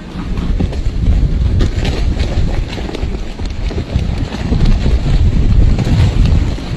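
Wind buffeting the microphone: a loud, irregular low rumble, with a few faint ticks over it.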